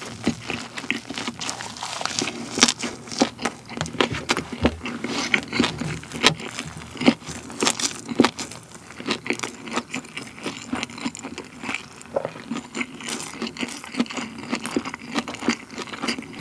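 Close-miked chewing of a huge mouthful: a perilla-leaf wrap (ssam) of fire-grilled chicken feet with rice and cheese. It gives a dense, irregular run of moist clicks and crunches.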